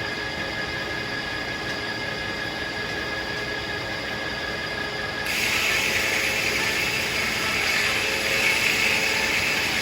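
Circular sawmill running with a steady hum and a few held whining tones; about five seconds in a louder, hissing sound sets in and holds, the blade cutting into a tulip poplar log.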